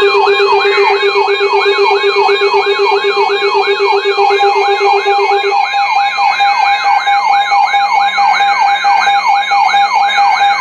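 Electronic siren-type alarm sounding a fast yelp: a rising sweep repeated about three times a second over steady tones. The lowest steady tone drops out about halfway through.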